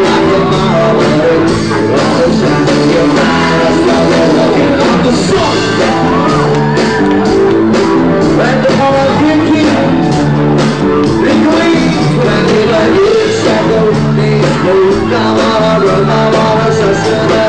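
Live rock band playing loud, with singing, electric guitar and a steady drum beat.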